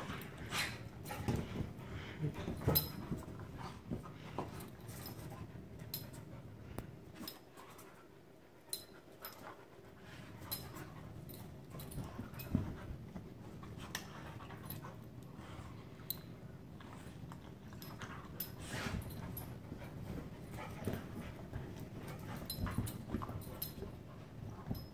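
Two dogs play-wrestling on a fabric-covered couch: panting and scuffling, with scattered sharp clicks. It goes quieter for a few seconds about a third of the way through.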